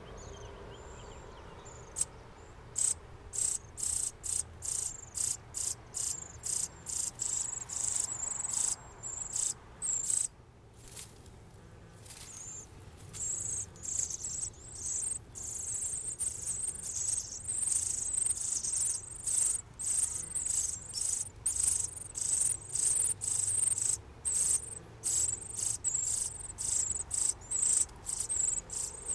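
Northern cardinal nestlings begging at the nest: rapid, thin, very high peeps, several a second. They start about two seconds in, break off briefly about ten seconds in, then run on almost without pause.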